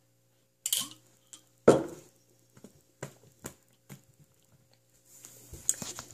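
Glass Ramune bottle knocked down with one sharp knock about a second and a half in, then a few light clicks as it is handled, followed by breathy laughter near the end.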